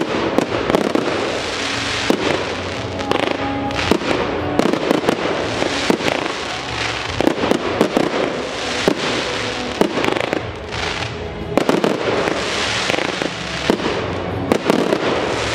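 Fireworks display going off continuously: many sharp bangs and bursts in quick succession over a steady hiss of burning stars and fallout, with no real pause.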